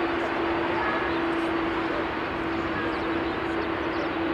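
Airbus A380-841's four Rolls-Royce Trent 970 turbofans running on the runway, a steady jet noise with a steady hum through it.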